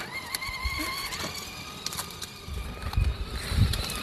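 Battery-powered Kid Trax Real Rigs ride-on toy truck driving, its small electric motor whining steadily, with low rumbling from its plastic wheels on concrete in the second half.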